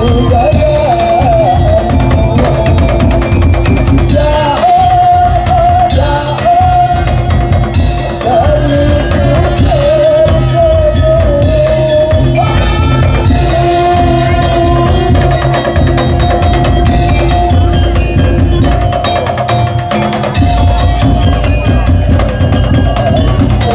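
Daul percussion troupe playing loud music: heavy drums beat densely, with a wavering, ornamented melody line above them.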